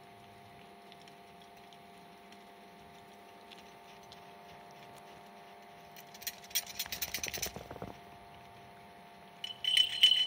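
A Kangal dog shaking snow off its head and body, about six seconds in: a quick rattling run of flaps and slaps lasting about a second and a half. Near the end comes a louder, short burst of shrill chirping.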